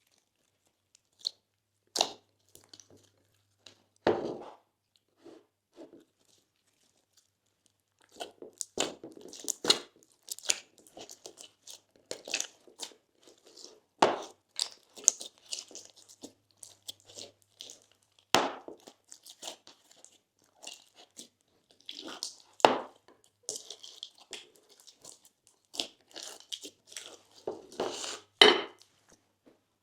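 Slime with crunchy add-ins being squeezed and folded by hand, giving irregular crunches, crackles and pops. The sounds are sparse for the first few seconds, then come thick and fast from about eight seconds in.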